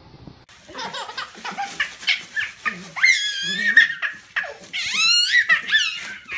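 A baby laughing hard in long runs of high, quavering belly laughs, starting about half a second in.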